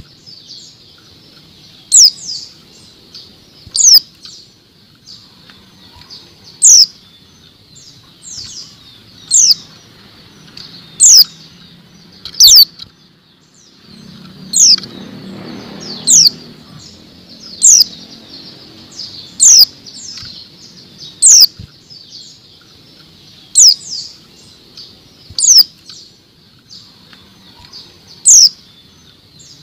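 Female white-eye (pleci) giving short, sharp calls that sweep down in pitch, one about every two seconds. Around halfway there is a brief soft rustle as the bird flits in the cage.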